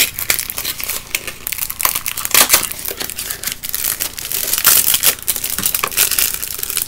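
Wrapping of a pack of stickers crinkling and crackling in irregular bursts as fingers pick and pull at it, struggling to get it open.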